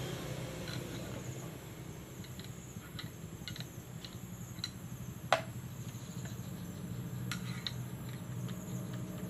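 Small metal clicks and ticks of a screwdriver tip working in the oiled bearing of an electric fan motor's end housing, irregular, with one sharper click about five seconds in. A steady low hum runs underneath.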